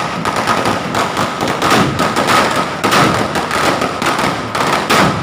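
A string of firecrackers going off in rapid, irregular cracks and pops, with a faint steady high tone underneath.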